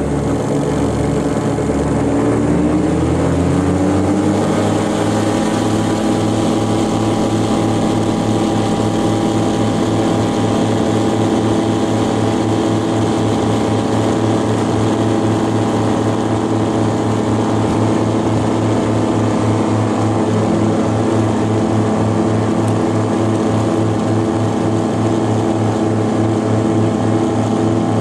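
Aero Commander's twin piston engines and propellers heard from inside the cockpit. They rise in pitch over the first few seconds as power comes up for takeoff, then hold a steady, loud full-power drone through the takeoff run and climb-out.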